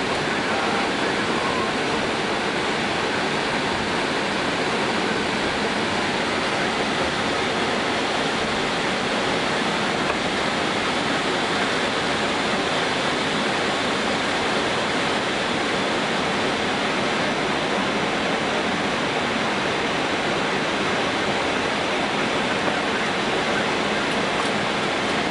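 Steady, even rushing noise inside an Airbus A320 cockpit as the airliner taxis slowly in to the gate.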